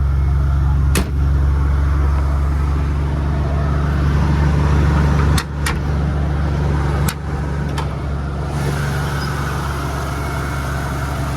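Ford 4.9-litre inline-six engine of a 1995 F-150 idling steadily, with no knocking. A few sharp clicks come over it, one about a second in and several between five and eight seconds in.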